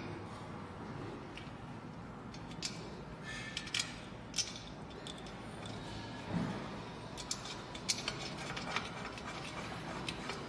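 Scattered small metallic clicks and taps of a nut and washer being threaded by hand onto a bolt through a square steel tube of a weight bench frame, several clustered about seven to nine seconds in.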